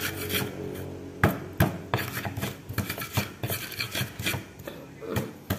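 Stone pestle grinding garlic, shallots and coriander on a flat mortar with a rasping scrape, followed by a run of sharp knocks and clicks.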